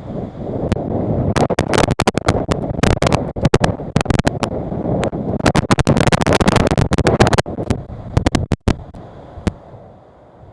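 Strong wind gusting across the microphone: a loud, rough rumble full of sharp crackles, easing off about eight seconds in.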